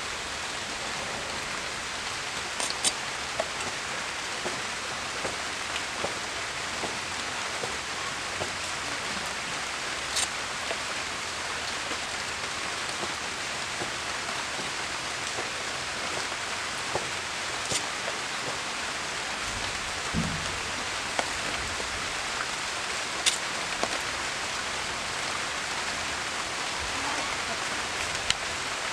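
Arum flower stalks being peeled by hand and trimmed on a boti blade, giving a few crisp snaps and clicks over a steady hiss.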